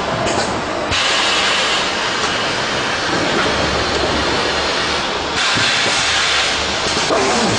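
SP 390P thermoforming packaging machine running: a steady loud hiss with a low rumble beneath it. The hiss grows louder about a second in and again a little after five seconds in.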